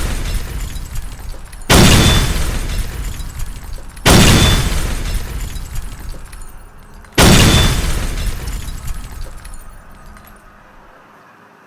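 A sound-effect crash or blast played three times in a row. Each one starts suddenly at full loudness and dies away over two to three seconds, and the last fades out near the end.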